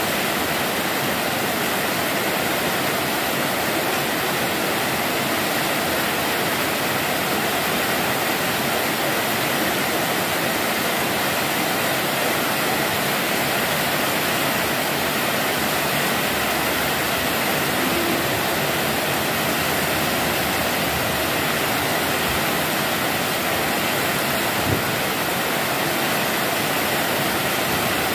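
Heavy rain falling steadily, a dense even hiss. A single brief tap about 25 seconds in.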